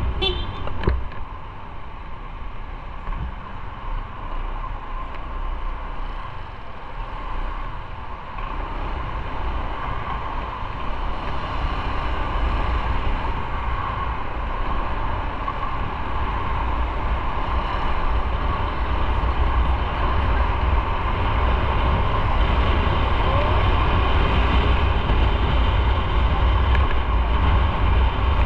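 Motorcycle riding in city traffic: the engine running under steady wind and road rumble on the microphone. The sound grows louder from about a third of the way in as the bike gathers speed.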